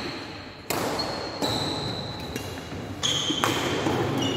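Badminton rackets striking a shuttlecock in a rally: sharp hits a second or two apart, each with a brief high ringing ping from the strings, echoing in a large hall.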